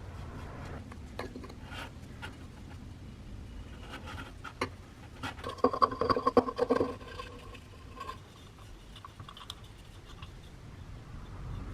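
Hand scraping and rubbing, with scattered light clicks and taps; a louder stretch of scraping comes about five to seven seconds in.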